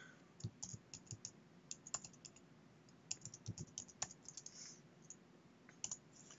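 Faint typing on a computer keyboard: short, irregular runs of key clicks, the last keystrokes shortly before the end as Enter is pressed.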